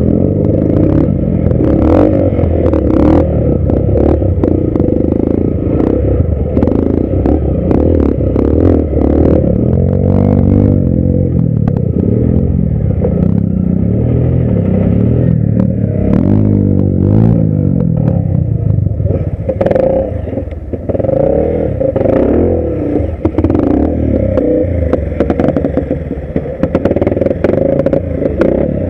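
Dirt bike engine revving up and down again and again as it claws over rocks, with frequent clattering knocks from the bike striking the ground.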